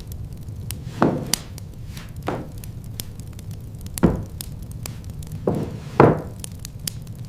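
A series of chopping blows, about six strikes at uneven intervals, each hit sharp with a short ring-off.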